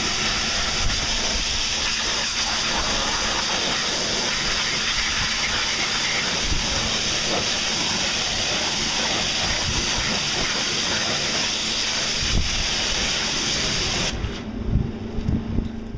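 Pressure-washer lance spraying a high-pressure jet of water onto an alloy wheel and tyre: a steady hiss that cuts off about two seconds before the end, followed by a few low knocks.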